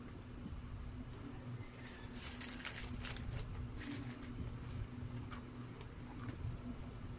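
Close-miked ASMR eating sounds: chewing crispy fried chicken, with wet mouth clicks and crackles that come thickest in the middle, over a steady low electrical hum.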